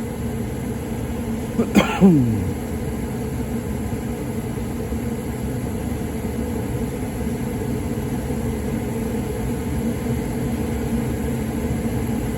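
A 90% Amana gas furnace running with a steady hum, now firing after showing a three-flash code that the technician takes for a pressure-switch fault. About two seconds in, a brief vocal sound, falling in pitch, like a cough.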